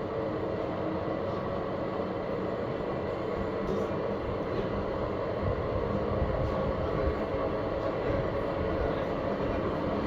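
Panasonic drum-type washing machine running, its drum turning with a steady rumble and motor hum that grows a little louder about halfway through.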